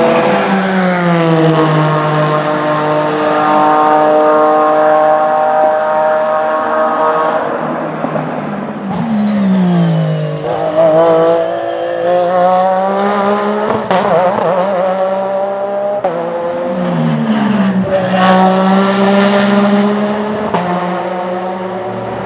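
Porsche 911 RSR race car's mid-mounted 4-litre flat-six running hard on track. The engine note holds high, then drops steeply several times, around a third of the way in and again about three-quarters through, and climbs again near the end.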